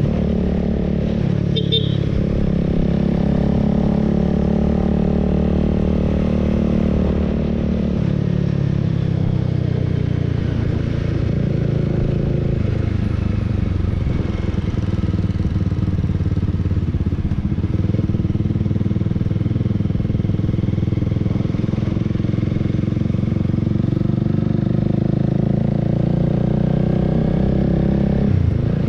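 Honda Rebel 300's single-cylinder engine running under way at a steady cruise. Its pitch eases down over the first couple of seconds and shifts abruptly near the end.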